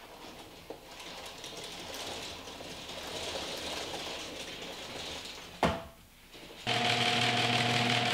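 Chain-operated ceiling backdrop roller reeling up a roll of seamless paper: a steady rapid chain rattle for about five seconds that ends in one sharp knock as the roll tops out. Near the end a steady electric motor hum starts, from a garage door opener.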